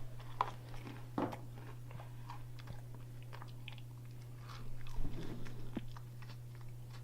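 A person chewing and crunching a mouthful of microwaved Milky Way and cheesy Goldfish cracker 'fondue', with irregular crunches and mouth noises over a steady low hum.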